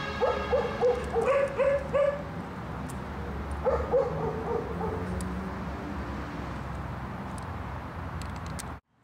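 A series of short, pitched yelping animal calls, about six in quick succession and then three more a little later, over a steady low rumble. The sound cuts off suddenly near the end.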